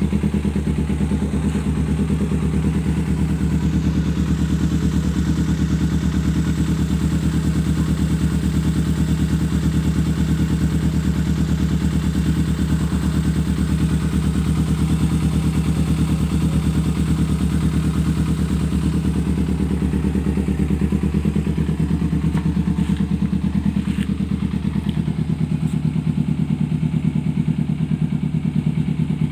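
Kawasaki Ninja 250R's parallel-twin engine idling steadily through a Reed Line aftermarket exhaust (knalpot).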